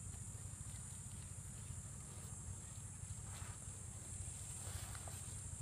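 Steady high-pitched insect drone, with a low rumble underneath and a couple of faint, brief sounds in the middle.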